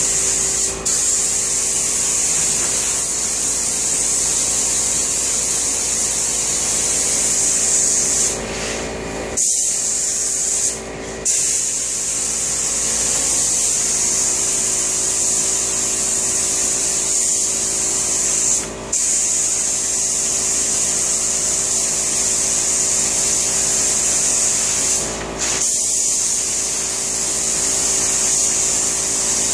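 Cup-fed spray gun on an air hose hissing as it sprays a clear finish coat onto stained oak cabinets, with a few short breaks where the trigger is let off.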